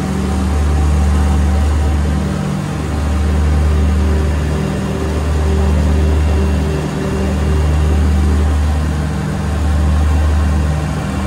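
Homemade twin-engine light aircraft's engines running hard through the takeoff roll and climb-out, heard from inside the cockpit. The steady engine note swells and fades slowly and evenly, about every two seconds.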